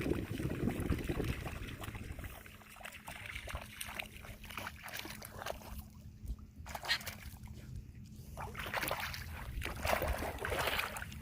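Shallow seawater sloshing and splashing in irregular strokes that grow louder near the end, with wind rumbling on the microphone in the first couple of seconds and a faint steady hum underneath.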